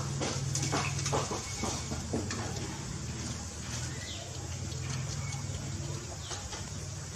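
Outdoor ambience: a steady low hum with scattered short clicks and a few brief high chirps.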